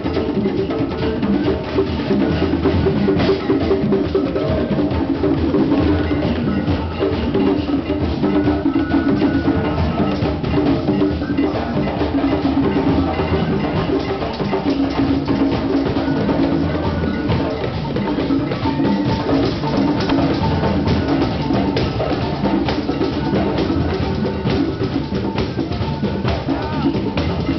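A drum circle of hand drums, congas among them, playing a dense, steady groove of many overlapping strokes.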